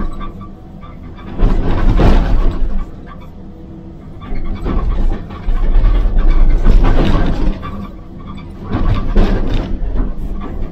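Excavator-mounted hydraulic breaker hammering brick and concrete rubble in three long bursts, heard from inside the cab. The excavator's engine runs steadily between the bursts.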